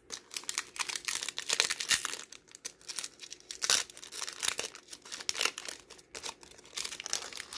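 Crinkling and tearing of a Pokémon card booster pack's metallic plastic wrapper as it is handled and ripped open, an irregular run of scratchy rustles.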